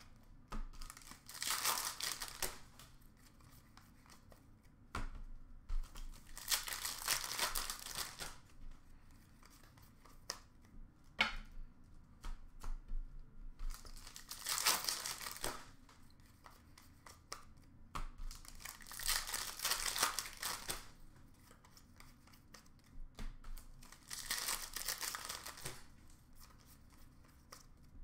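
Hockey card pack wrappers being torn open and crinkled by hand, in about five separate bursts, with small clicks and handling noises between them.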